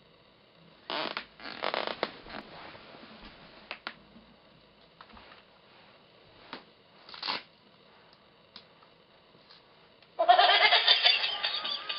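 A laughing plush tiger toy: a few short, quieter sounds come first, then about ten seconds in the toy starts its recorded laughing, loud and continuous.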